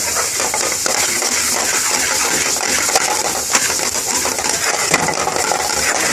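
Metal ladle scraping and clinking rapidly against an aluminium frying pan as cauliflower florets are stirred into a spiced tomato gravy, over a steady sizzling hiss from the pan.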